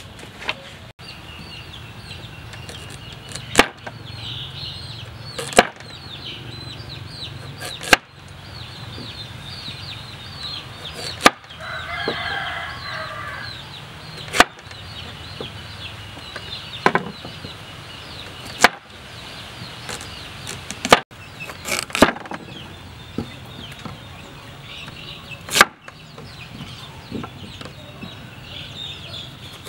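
A cleaver chopping carrots on a wooden cutting board, single sharp chops a few seconds apart, over steady background birdsong. A chicken calls about twelve seconds in.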